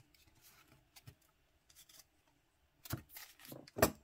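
Trading cards being handled: faint rubbing and sliding of card stock, with two louder short scrapes about three seconds in and near the end.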